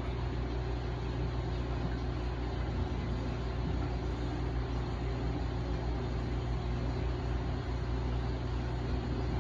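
Steady low hum and even hiss of reef aquarium equipment: the pumps running and water circulating in the tank, with no change throughout.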